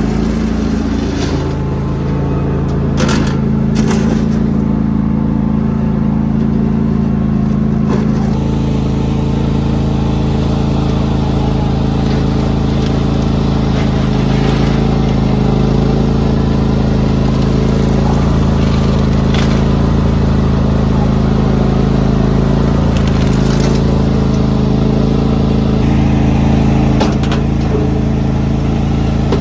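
John Deere X330 lawn tractor's engine running steadily under load, with a few scattered short knocks or clanks.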